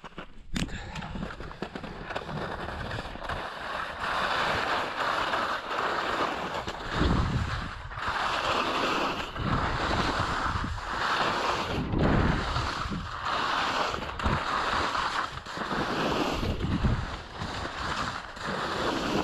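Skis sliding fast down snow: a rushing hiss that swells and fades with each turn, about every one to two seconds, with wind rumbling on the microphone.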